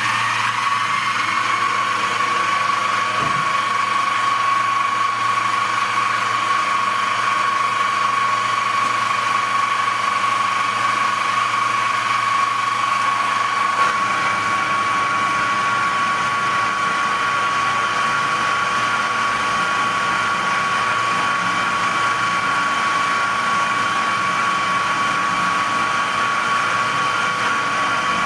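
Small milling machine coming up to speed and running with a steady high whine while its fly cutter takes a 1.5 mm cut in aluminium. About fourteen seconds in, the low rumble underneath changes.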